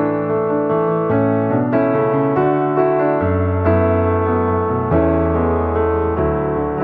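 Piano music: sustained chords and melody notes changing every second or so, with no firework bangs heard.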